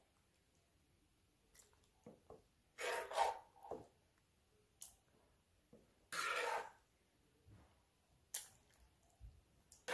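Large metal spoon scooping thick meat sauce from a stainless steel pan and spooning it onto pasta: three short scraping strokes about three seconds apart, with faint clicks between.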